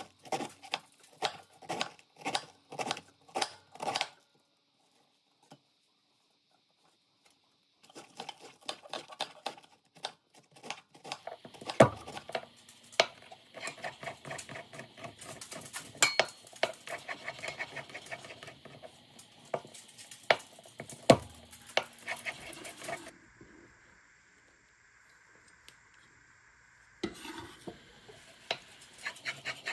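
Chef's knife chopping on a wooden cutting board: a run of even strokes through a cabbage head, then fast, dense tapping as garlic cloves are minced. The chopping stops for a few seconds about four seconds in and eases off for a few seconds later on.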